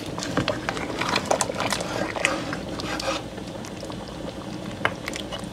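Thick stew of red kidney beans and meat bubbling in a metal pot as a ladle stirs through it: wet sloshing and bubbling, with many small clicks of the ladle against the pot in the first three seconds, then quieter.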